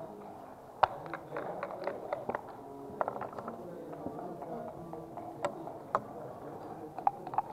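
Backgammon dice and checkers clicking and clattering on the board: one loud click about a second in, then scattered lighter clicks, with a murmur of voices around the tables.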